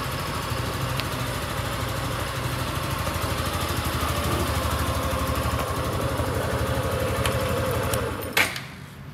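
Suzuki Gixxer SF 150's 155cc single-cylinder air-cooled engine idling steadily. Near the end the engine sound dies away and there is one sharp click.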